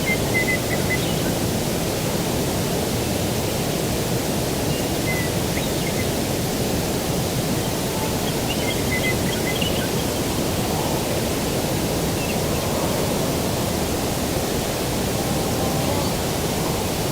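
Steady low rushing of outdoor air and distant surf, with faint short bird chirps breaking through a few times.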